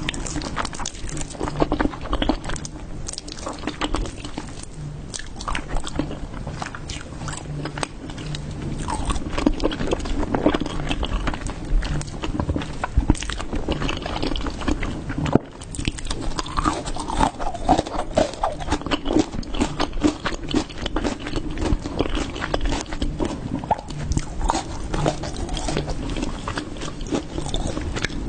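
Close-miked eating sounds of a person chewing and biting food: wet mouth noises with many small irregular clicks throughout.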